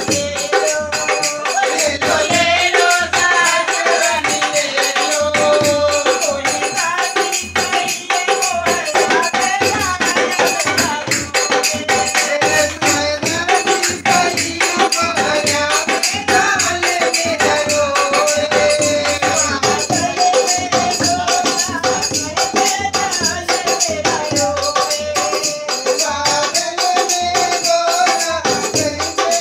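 Dholak beaten in a steady folk rhythm, with a shaken rattle jingling along throughout and a wavering melody over the top.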